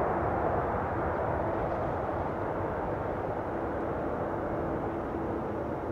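Boeing 747-8's four GEnx turbofan engines rumbling as the jet rolls out on the runway after landing, the noise slowly fading as it slows. A faint steady tone joins the rumble from about halfway.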